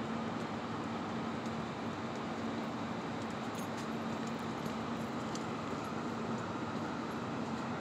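Steady city street traffic noise, with a low steady hum under it.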